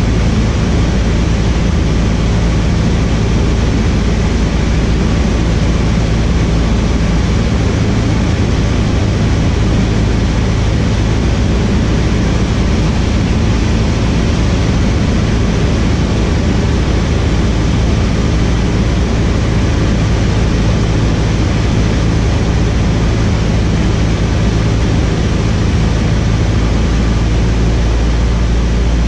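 Cessna 152's four-cylinder Lycoming O-235 engine and propeller running steadily in flight, heard inside the small cabin as a loud, even drone with a steady low hum.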